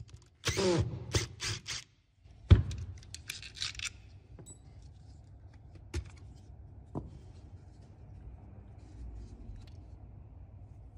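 Makita cordless driver whirring in a few short bursts, its pitch gliding as it speeds up and stops, while it backs out the screws holding down a brushless motor's stator. About two and a half seconds in comes a sharp knock, the loudest sound. Rustling and a couple of light clicks follow as the parts are handled.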